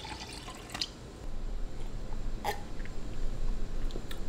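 Liquid pouring from a glass jar into a drinking glass, a splashing trickle that stops about a second in. After that a low rumble, with a single sharp knock about halfway.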